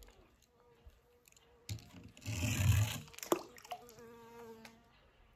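A small die-cast toy car rolling down a ramp and dropping into a swimming pool: a noisy rush about two seconds in that lasts about a second, then a sharp plop.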